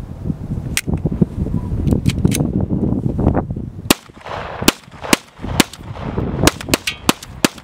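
Rapid 5.7×28 mm gunshots from a Ruger, about a dozen sharp cracks. They come spaced out at first and faster in the second half, with wind rumbling on the microphone.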